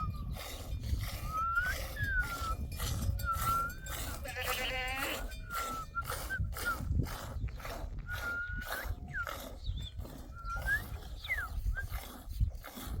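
A flock of sheep bleating, with one long quavering bleat about four seconds in and thinner, higher calls scattered through. Frequent short knocks and rustles run underneath.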